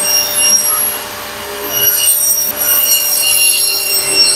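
Table saw cutting a shallow groove along a wooden board, the blade running with a steady high whine over the noise of the cut.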